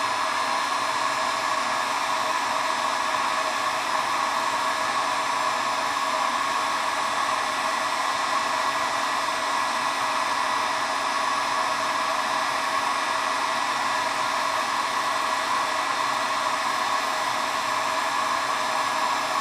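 Electric heat gun running steadily on its number-2 setting, blowing hot air over an acrylic tube to soften it for bending.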